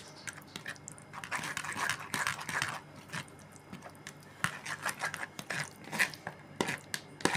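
Steel ladle scraping round and pressing wet bael fruit pulp against a plastic basket used as a strainer: a rasping scrape in the first half, then a few sharp taps of the ladle on the basket.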